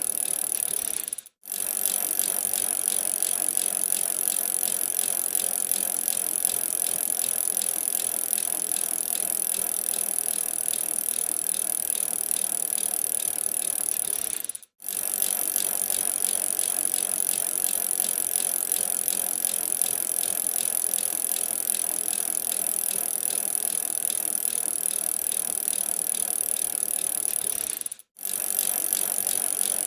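A bicycle on the move, with a steady, rapid ticking and rattling. It cuts out briefly three times, about every thirteen seconds.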